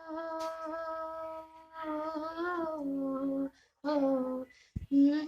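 A girl singing a Hindi film-song phrase unaccompanied, holding one long steady note and then moving into short wavering phrases, with brief breath pauses between them.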